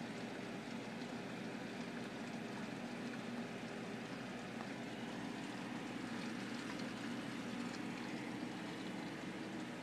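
Steady bubbling and trickling of water from the aquarium's filters.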